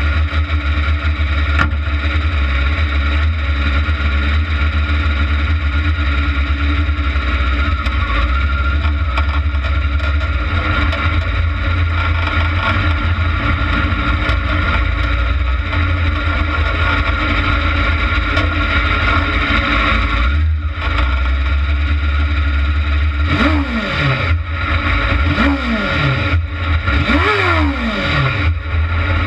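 Kart cross buggy engine running steadily at low speed, with three short revs near the end, each rising and then falling in pitch.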